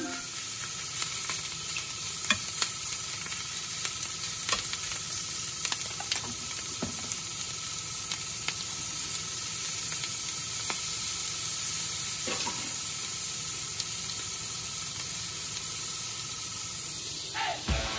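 Chopped pork sisig sizzling steadily in a hot cast-iron skillet, with a metal spoon stirring through it and scattered sharp clicks.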